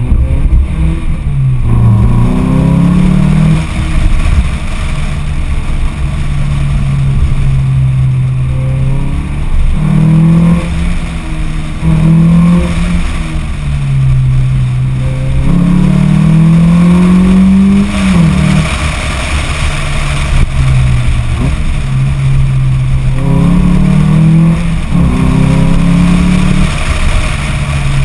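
Lotus Elise S four-cylinder engine with a sport exhaust, pulling hard several times with the revs climbing and dropping back at each gear change, with stretches of steady cruising in between. Heavy wind and road rumble on the side-mounted camera's microphone.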